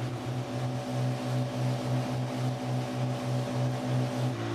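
Boat engine running steadily, a low hum that throbs about three times a second, settling into a steadier, higher tone near the end.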